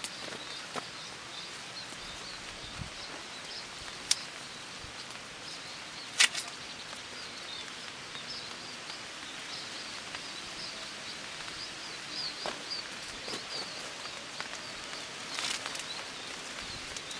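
Outdoor natural ambience: a steady background hiss with a string of faint high chirps, and two sharp clicks about four and six seconds in.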